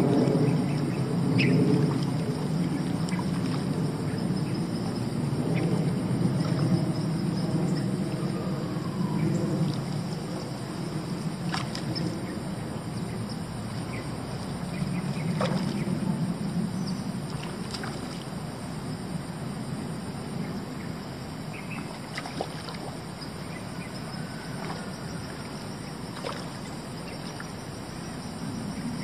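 Steady rush of river water with a constant high insect chorus above it. The water is louder in the first third and then eases, with a few faint clicks scattered through.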